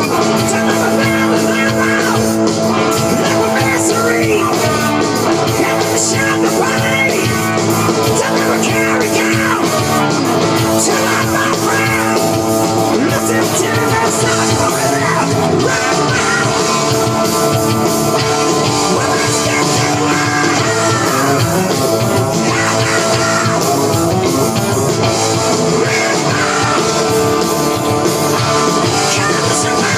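Rock band playing loudly, electric guitar to the fore, with long held notes and bending lines.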